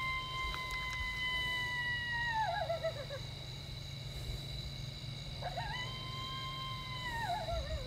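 Two long coyote howls, each holding one pitch for a couple of seconds and then breaking into a wavering fall.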